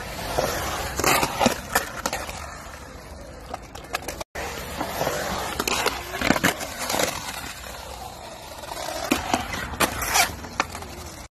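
Skateboard wheels rolling and carving on the concrete of a skate bowl, with several sharp clacks as the board and trucks hit the coping and the deck.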